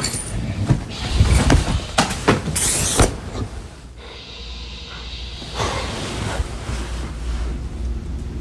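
A man snoring heavily in his sleep. A loud, rough snore fills the first three seconds and ends in a hissing breath, then comes a quieter lull and another snore about six seconds in.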